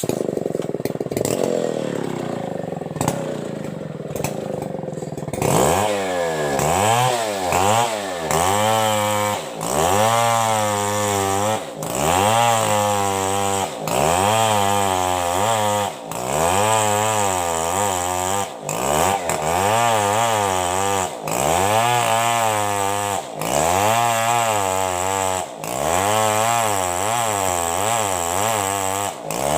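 Two-stroke chainsaw cutting lengthwise through a coconut palm trunk. It starts abruptly and runs fairly steadily for about five seconds, then revs up and falls back about every two seconds as it works through the cut.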